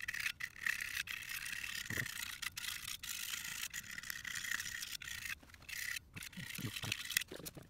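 A hand scraper's blade scraping old gasket material off the steel flange of a bus's rear axle shaft, cleaning the sealing face for a new axle gasket. It is a harsh, hissy scrape in repeated strokes with short pauses between them.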